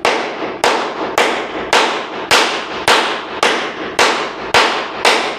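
Steady series of sharp strikes in woodworking, about two a second, each with a short noisy tail, like a hammer or mallet working wood.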